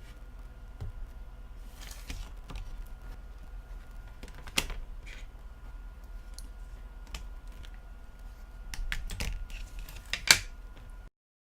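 Scattered light clicks and taps from handling a partly reassembled smartphone, with a sharper click about four and a half seconds in and a small cluster near the end, over a faint steady hum.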